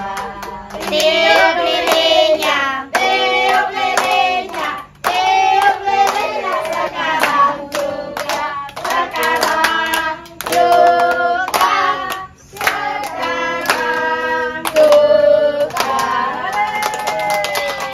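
A group of children and women singing a birthday song together, clapping along.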